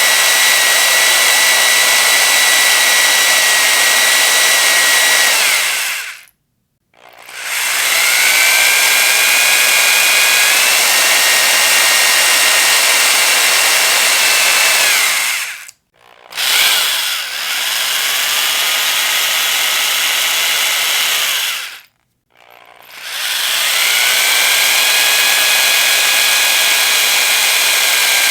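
Electric power drill running in long bursts: the motor whine holds steady, cuts out briefly three times, and each time spins back up with a rising whine before levelling off.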